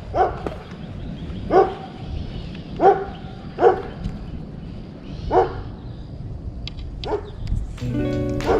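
A dog barking, about six single barks spaced one to two seconds apart. Music starts in near the end.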